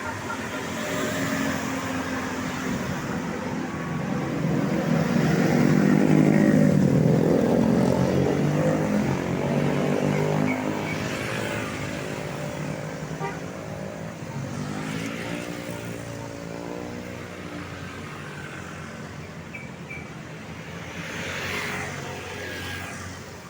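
A large vehicle's engine, most likely a tour bus, passing close by. It grows to its loudest about six or seven seconds in, then slowly fades, with another vehicle going by near the end.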